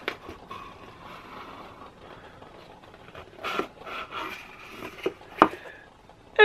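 Cardboard box being opened by hand: the card rubs and scrapes, with a few sharp clicks, the loudest about five and a half seconds in.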